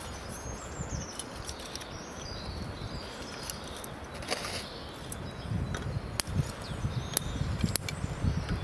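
Small wood campfire crackling with sharp pops as split kindling sticks are laid across it, wood knocking lightly on wood; the pops come more often in the second half.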